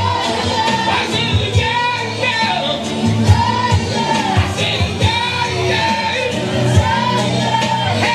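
Band music with a singer: a sung melody with long, bending notes over a steady bass line and drum hits.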